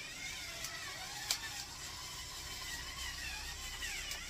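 Battery-powered electric pepper or salt grinder whirring steadily as it grinds seasoning into the pot, with one small click about a second in.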